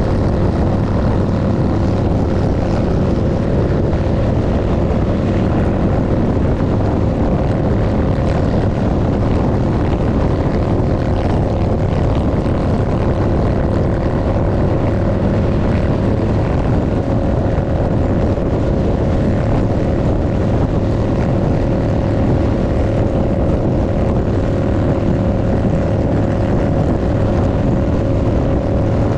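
Harley-Davidson motorcycle engine running steadily at highway cruising speed, mixed with heavy wind rush over the microphone. The drone holds even throughout, with no revving or gear changes.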